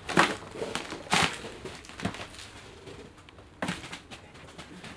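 Footsteps crunching through paper and debris littering the floor, about four steps at an uneven pace.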